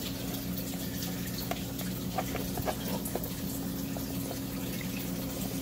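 Steady hum of running aquarium pumps with water circulating, and a few faint clicks as pump cable connectors are handled.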